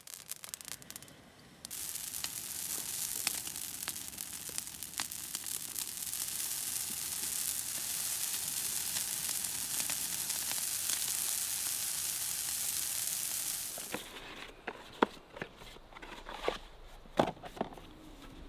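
A brush pile of green conifer boughs burning, with a steady hiss and scattered crackles and pops. The hiss stops suddenly about fourteen seconds in, and sharp rustles and clicks of a small cardboard box being opened by hand follow.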